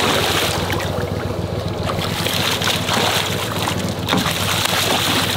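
Hooked alligator gar thrashing at the surface beside the boat, splashing water hard in surges, loudest at the start and again about three seconds in, over a steady low hum.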